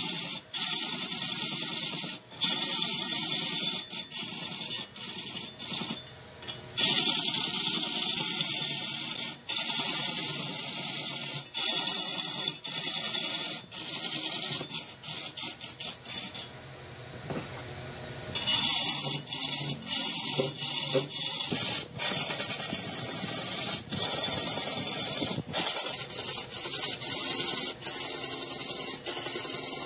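Wood turning on a lathe: a steady high hiss and scrape of wood being worked as it spins, broken by many sudden brief cut-offs and a quieter stretch about two-thirds of the way through.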